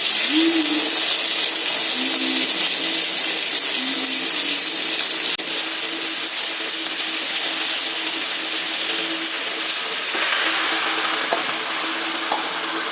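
Marinated chicken pieces sizzling loudly in hot oil and fried onion-garlic paste in a kadai. The sizzle sets in suddenly and flares up again about ten seconds in.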